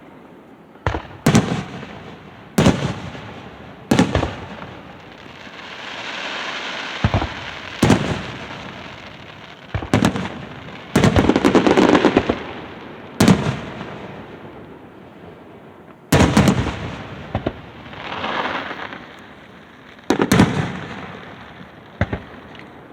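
Aerial fireworks shells bursting one after another: more than a dozen sharp bangs, several in quick pairs, each trailing off in a rolling echo, with swells of crackling hiss between them.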